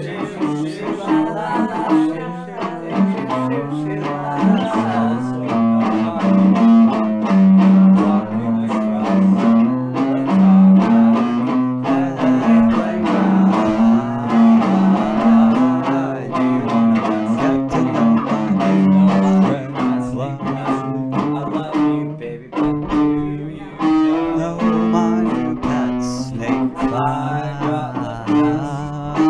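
Band music from a homemade rock-style EP: guitar-led playing over a bass line that steps up and down, with regular percussive hits.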